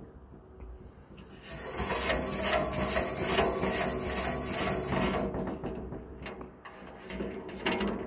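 A file in an Atlas hand filer rasping against a steel tooth of a circular sawmill blade, with quick repeated strokes from about a second and a half in to about five seconds. After that come a few lighter clicks and one short rasp near the end.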